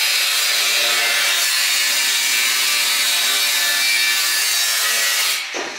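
Angle grinder with a cutting wheel, running steadily as it cuts through a steel exhaust pipe, throwing sparks; it stops abruptly near the end.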